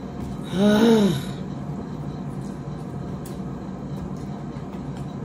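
A woman's short wordless vocal sound, rising then falling in pitch, about half a second in, as she squeezes lemon halves by hand; after it, a steady low hum with a few faint ticks.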